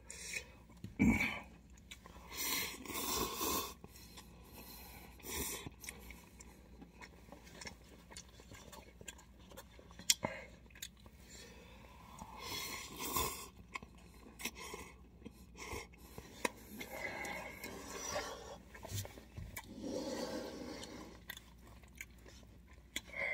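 Instant cup noodles being slurped and chewed, with chopsticks stirring and scraping in the paper cup. The louder slurping comes in stretches of about a second, several times, with small clicks of the chopsticks between them.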